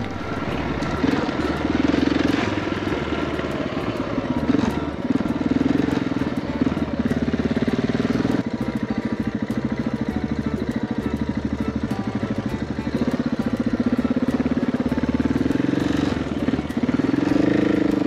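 Adventure motorcycle engine running as the bike is ridden, its pitch rising and falling with the throttle. The sound changes abruptly about eight and a half seconds in.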